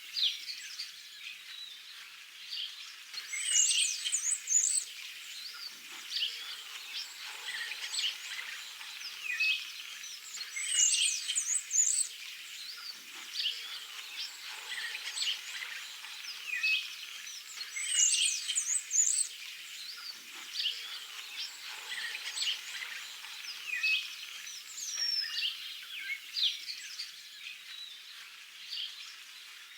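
Songbirds singing and chirping in a rural outdoor chorus. One bird repeats a high, rapid song phrase about every seven seconds over the scattered calls of others.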